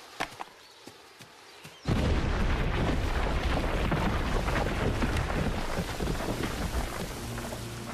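An explosive charge in the ground goes off about two seconds in: a sudden blast followed by a long, rumbling roll that slowly fades.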